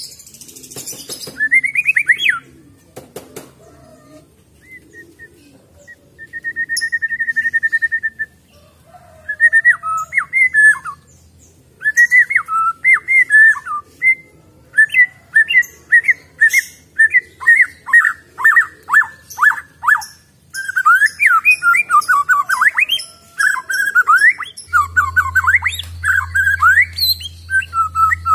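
Wild-caught white-rumped shama singing: varied whistled phrases of sliding notes, one held steady whistle, then a fast run of short down-slurred notes that keeps up near the end.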